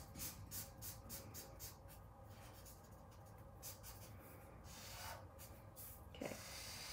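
Felt-tip marker scratching on paper in quick back-and-forth colouring strokes, about four a second at first, then fewer and softer before picking up again near the end. Faint.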